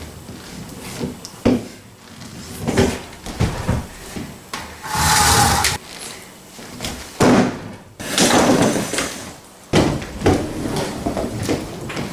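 Quad roller skates on a hardwood floor: wheels rolling and clattering, with repeated knocks as the skates touch down and stretches of wheel rumble, the longest about halfway through and again near the end.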